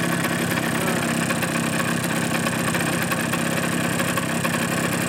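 Suzuki GP100 single-cylinder two-stroke disc-valve engine idling steadily on a test stand, hot and rattling with piston skirt slap from the clearances opening up in a worn piston and cylinder.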